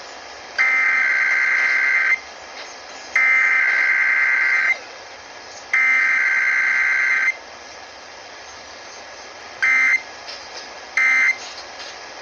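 Emergency Alert System SAME data bursts from a Required Weekly Test: three loud buzzing digital tone bursts of about a second and a half each, a second apart, for the header, then two short bursts near the end, the start of the end-of-message signal.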